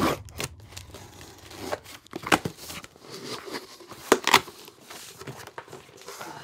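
Taped cardboard shipping box being opened by hand: tape tearing and cardboard flaps scraping and rustling in scattered sharp strokes, loudest a little over two seconds and four seconds in.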